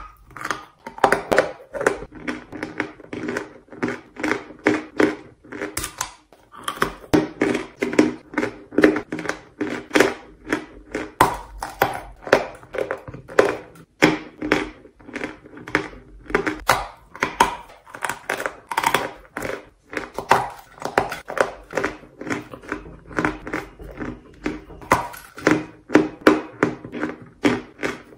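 A bite into a lump of chalk, then close-up crunchy chewing of the chalk in the mouth, several crunches a second, with a short pause about six seconds in.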